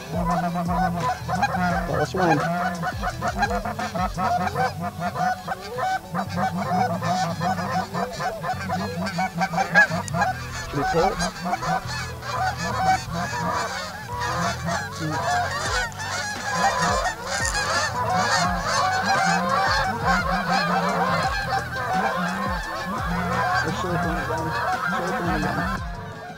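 Flock of geese honking, many calls overlapping, busiest about two-thirds of the way through.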